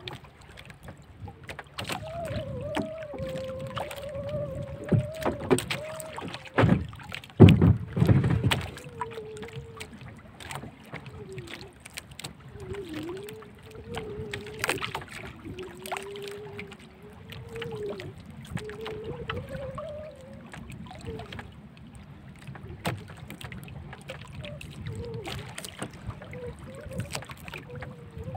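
Sounds of a small fishing boat on the water: water sloshing against the hull and scattered knocks and clatter, with a few heavy thumps about seven to eight seconds in. A faint wavering tone runs through.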